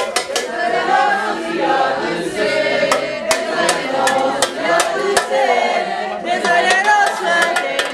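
A group of voices singing or chanting together in unison, with scattered sharp knocks or claps among them.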